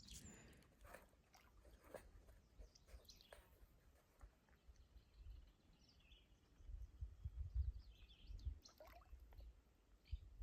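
Near silence: quiet outdoor ambience with a few faint bird chirps and some low rumbles.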